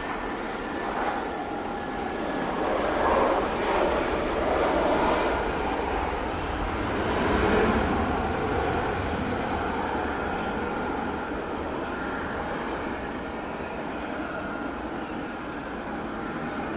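Airbus A320 airliner on its landing roll just after touchdown: a broad jet-engine roar that swells twice in the first half and then eases as the aircraft slows down the runway.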